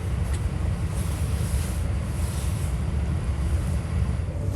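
Steady low rumble with an airy hiss inside the cabin of an Airbus A319 airliner.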